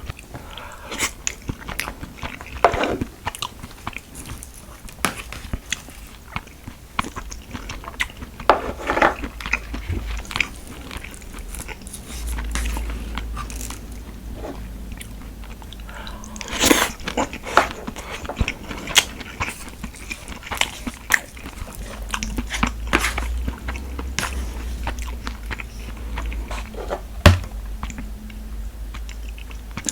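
Close-miked eating: a person chewing and biting on convenience-store rice dishes, with irregular wet clicks and smacks. There is one sharp knock about 27 seconds in.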